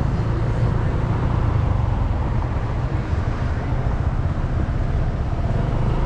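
Steady vehicle and traffic noise, mostly a low rumble with an even hiss above it.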